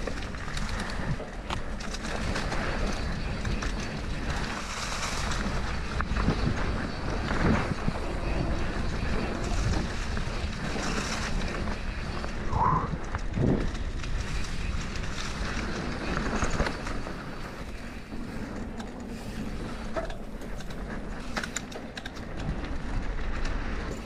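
Wind buffeting a chin-mounted GoPro's microphone while a mountain bike rolls fast down a dirt singletrack, with a steady rush of tyres on loose dirt and leaves and scattered knocks and rattles from the bike over bumps. A brief high squeak sounds about halfway through.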